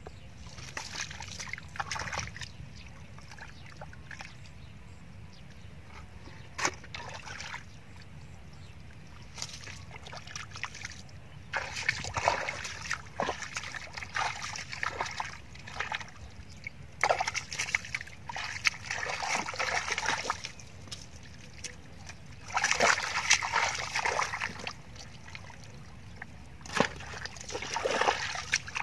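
Bare feet treading and stamping in soft, waterlogged mud, squelching and sloshing in irregular bursts that come thicker and louder in the second half, as the mud is churned to find fish buried in it.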